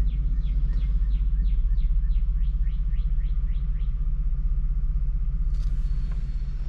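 Steady low rumble of a car heard from inside the cabin. Over it, a rapid run of about a dozen high, down-slurred chirps, about three a second, stops about four seconds in.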